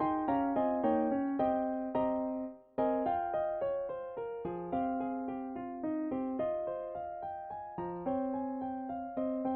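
Piano-type keyboard playing a slow melody over chords, each note struck and fading, with a brief break about two and a half seconds in.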